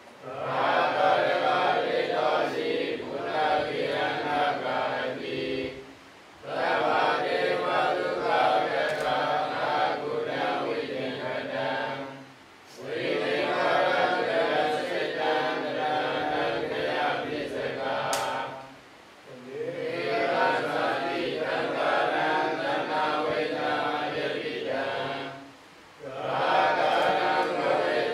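Group of Burmese Buddhist monks chanting together in unison, in long phrases broken by brief pauses about every six to seven seconds.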